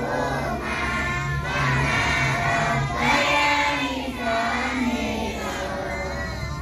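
A group of children singing together like a small choir, with long held notes, over a steady low hum.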